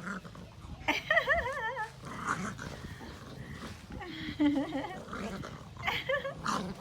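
A puppy's vocalising: wavering, whine-like calls with low growls, in a few short bouts.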